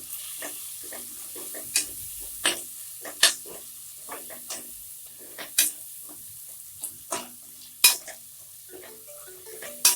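A spoon stirring an onion-tomato masala frying in oil and ghee in a pressure cooker: a steady sizzle with irregular sharp clacks of the spoon against the pot, the loudest near the end.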